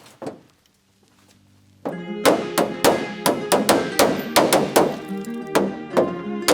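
Background music. After a brief near-silent pause, a staccato pattern of short plucked notes starts about two seconds in and repeats at about three notes a second.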